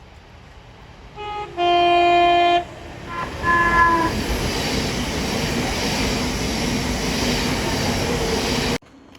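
Train horn sounding a short note, then a long loud one, then a note of a different pitch, followed by the train passing with a loud steady rush of noise that cuts off suddenly near the end.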